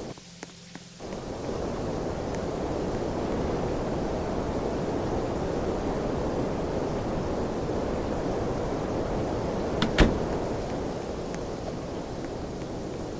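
Steady rush of blown air from a running air conditioner, coming up to full level about a second in, with one sharp click about ten seconds in.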